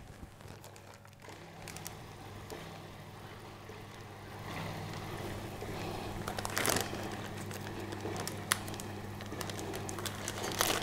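Faint kitchen handling noises over a steady low hum, with scattered small clicks and one sharper knock about two-thirds of the way through.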